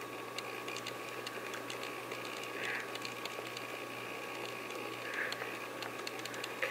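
Quiet room noise: a steady hiss with a thin, steady high whine and scattered faint clicks, with two soft, brief rustles about a third and three-quarters of the way in.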